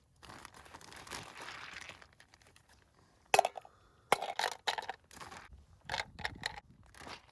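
Crinkling and rustling of something being handled for about two seconds, then a run of sharp clicks and knocks, some with a slight ring.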